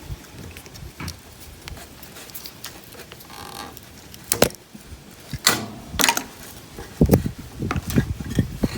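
Scattered knocks, clicks and clatter of tools and parts being handled while working on a ride-on lawnmower, with a few sharp knocks about halfway through and duller handling noise near the end.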